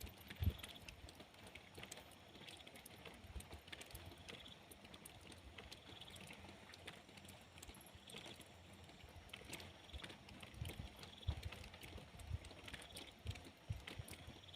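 Light rain falling: scattered drops and drips ticking, with irregular dull low knocks of drops landing. Faint short high chirps recur every second or two.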